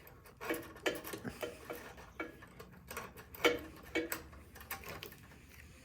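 Irregular small clicks and knocks of hard parts shifting as a part of a snowblower's carburetor assembly is slowly wiggled loose by hand.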